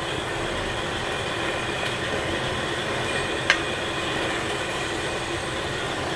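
Steady hiss of yoghurt-and-butter masala gravy cooking in a pot over a high gas flame, with one sharp clink about three and a half seconds in as chicken pieces are added.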